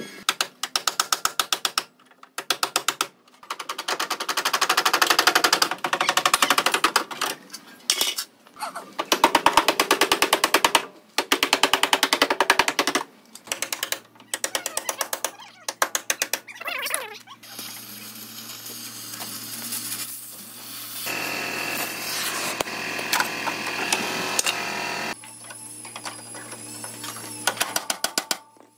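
Electric drill boring into a car's sheet-metal body panel, running in rapid chattering bursts with short pauses. Later a steadier hum with scattered metal knocks, and a few hammer taps on steel near the end.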